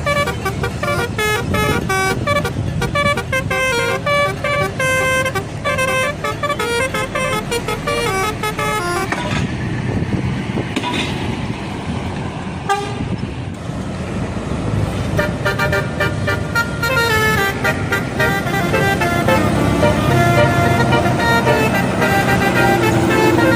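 Bus 'telolet' multi-tone musical horn playing quick melodic runs of notes over low bus engine and road noise, stopping for several seconds around the middle and starting up again with another tune.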